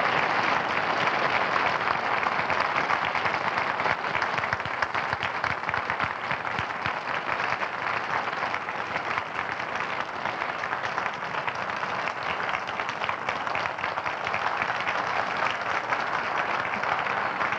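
Audience applauding: a steady mass of many hands clapping.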